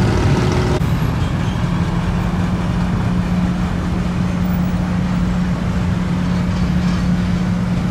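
Truck-mounted crane's engine running steadily, a low drone with a constant hum.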